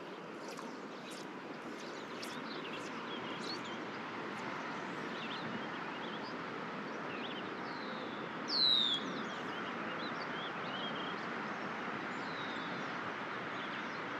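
River water flowing steadily over a stony bed, with songbirds chirping: many short, falling chirps, the loudest about eight and a half seconds in.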